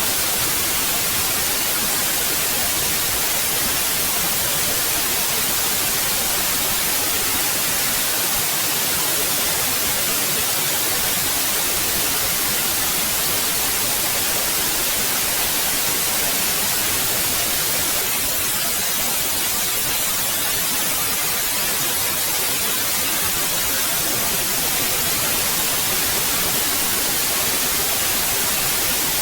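Steady electronically generated white noise: an even, unchanging hiss, brightest in the high frequencies.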